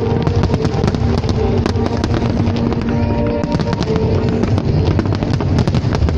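Fireworks display: dense crackling and popping with many sharp cracks in quick succession and a low rumble, over loud music with held notes.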